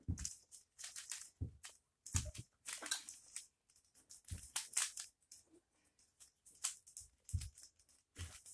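Plastic 3x3 twist shape-mod puzzle cube being turned quickly during a speedsolve: irregular runs of clacking and rattling as the layers turn, with a few dull knocks from the handling.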